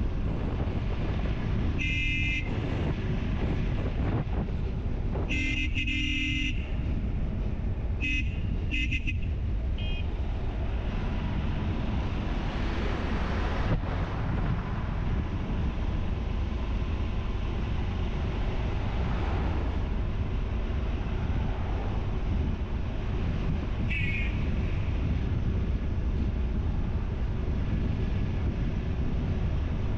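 Steady wind and engine rumble of a motorcycle riding along a highway, with a vehicle horn honking several times: a short toot about two seconds in, a longer blast around five to six seconds, two quick toots around eight to nine seconds, and one more short toot near the end.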